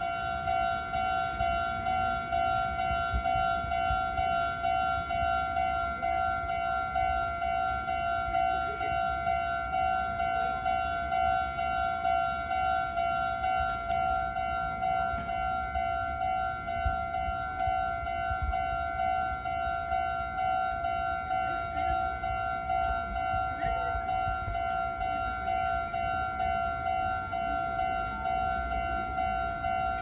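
Japanese level-crossing electronic alarm bell ringing in a rapid, even ding-ding-ding as the warning lights flash and the barriers are down: the signal that a train is approaching.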